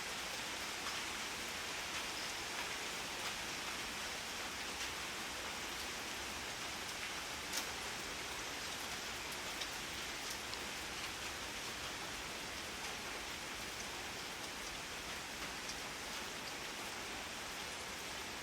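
Steady rainfall: an even hiss of rain with scattered individual drops ticking sharply, one a little louder partway through.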